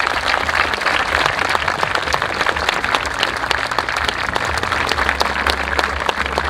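An audience applauding: many hands clapping at once, steady throughout.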